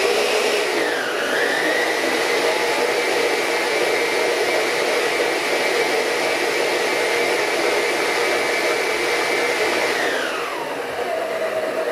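Electric stand mixer beating butter and sugar, its motor whining at a steady speed, then slowing about ten seconds in, the whine falling in pitch.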